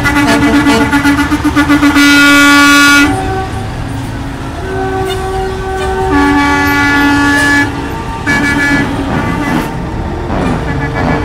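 Semi-truck air horns blowing in a series of blasts, each a chord of several notes like a train horn; the loudest, longest blast comes about two seconds in, followed by several shorter ones. Diesel truck engines rumble underneath.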